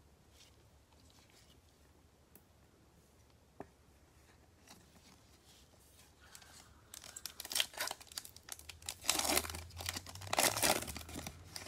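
A foil trading-card pack wrapper being torn open and crinkled by gloved hands. The crackly tearing starts about seven seconds in and comes in several loud bursts.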